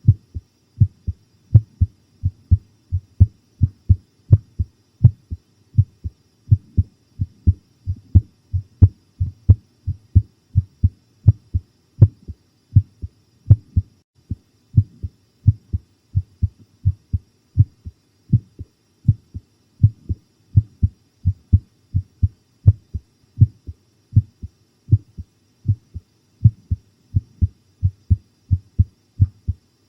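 A person's heartbeat recorded close up: steady, low lub-dub thumps in an even rhythm.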